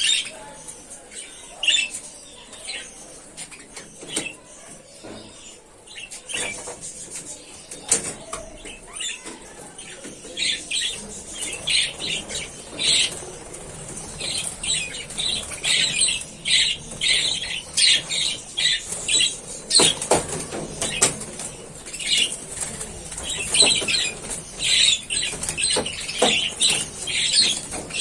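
A flock of budgerigars in an aviary: wings flapping as they fly about, and many short chirping calls that become much busier about ten seconds in.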